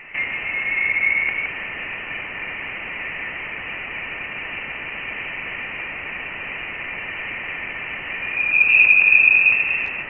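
Voyager 1 plasma-wave data from interstellar space turned into sound: a steady radio-like hiss with a thin, faint whistling tone about a second in and a higher, louder whistle near the end. The whistle's pitch follows the electron density of the ionized gas.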